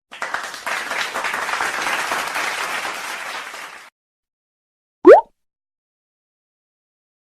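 Applause sound effect, a crowd clapping for about four seconds before it cuts off. About a second later comes one short, loud whistle gliding sharply upward.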